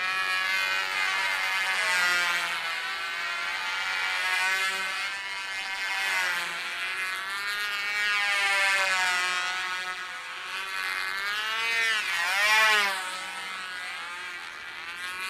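Propeller motors of small remote-controlled bird-like model planes running, their pitch rising and falling as they manoeuvre, with a sharp dip and rise about twelve seconds in.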